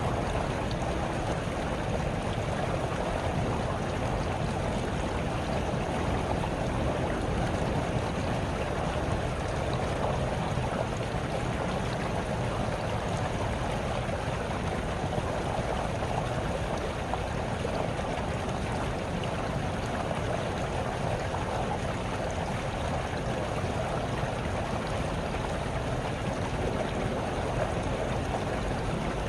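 Small stream trickling and babbling over stones, a steady water sound with no let-up.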